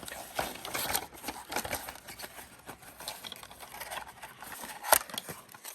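Cardboard packaging being opened and handled: scattered rustling and scraping, with one sharp click about five seconds in.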